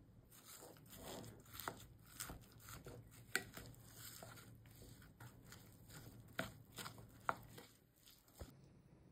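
Plastic rice paddle mixing cooked rice in a glass bowl: soft squishing and rustling of the rice with irregular taps and scrapes of the paddle against the glass, a few sharper knocks among them. The mixing stops near the end.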